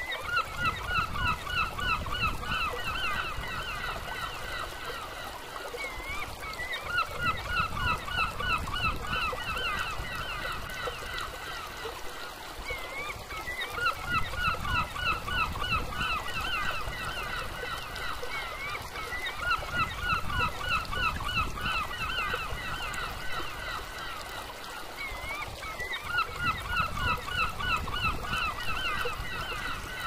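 River water rushing over low concrete weir steps, a steady roar, with a bird calling in quick runs of repeated notes. Each run lasts three or four seconds and comes back about every six seconds.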